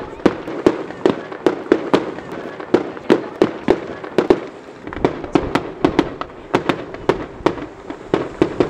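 Aerial fireworks bursting in quick succession: sharp bangs at about three a second, each with a short echo.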